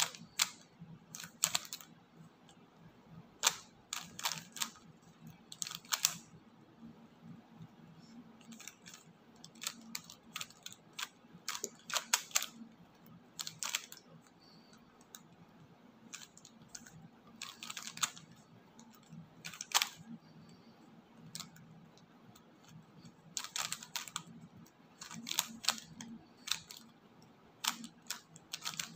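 A plastic 3x3 Rubik's cube being turned by hand: its layers click and clack in irregular runs of quick turns, with short pauses between the runs.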